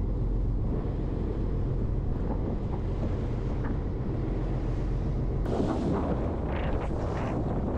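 Fishing boat's engine running with a steady low rumble, with wind buffeting the microphone; a louder rush of noise comes about five and a half seconds in.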